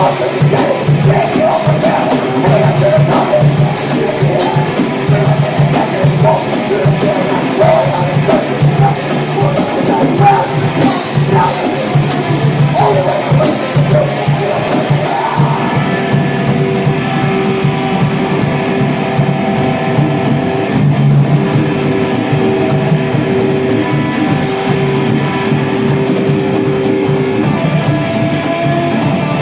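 Rock band playing live: drum kit with crashing cymbals and electric guitars. About halfway through the cymbals drop out and the guitars go on with long held notes.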